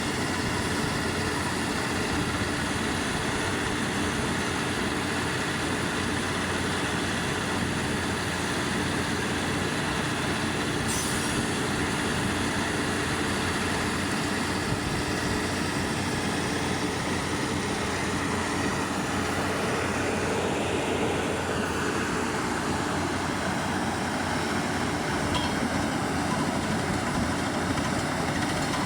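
Borehole drilling rig working off an 18-bar air compressor: steady, unbroken machine noise with a constant hum.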